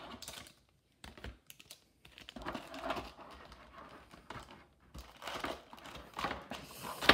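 Foil-wrapped trading card packs rustling and crinkling as they are lifted by hand out of a metal tin, with irregular light clicks and taps against the tin and a sharp knock near the end.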